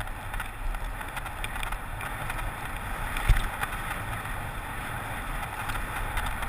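Steady wind rush and road rumble from a bicycle being ridden along tarmac, picked up by a handlebar-mounted camera, with one low bump about three seconds in.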